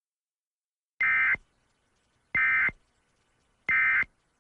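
Emergency Alert System end-of-message data signal: three identical short bursts of warbling digital tone, evenly spaced about a second and a half apart. It marks the close of the broadcast tornado warning.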